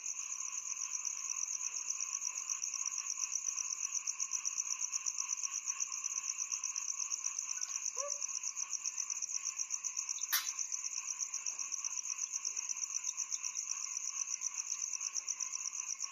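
Crickets trilling continuously in a fast, even, high-pitched pulse, with fainter lower-pitched steady buzzing beneath; one sharp click about ten seconds in.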